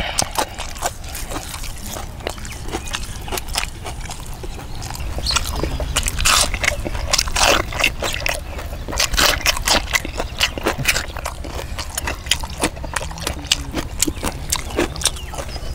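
Close crunching and chewing of raw salad vegetables, radish and cucumber, bitten off and chewed in the mouth: a run of crisp crunches, densest in the middle.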